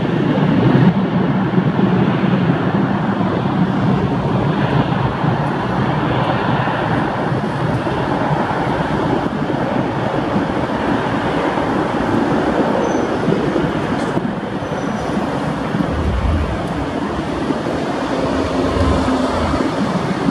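Airbus A321's twin jet engines running at high power for the takeoff roll: a steady, loud rushing noise that holds throughout, with a few low rumbles near the end.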